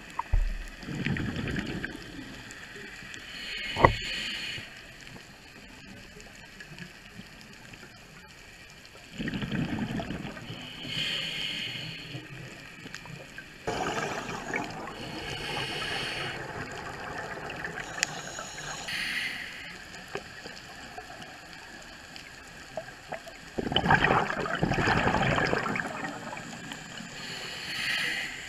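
Scuba diver breathing through a regulator underwater, heard through a camera housing: a hiss on each inhalation and a rush of bubbles on each exhalation, a few breaths several seconds apart. A single sharp knock about four seconds in.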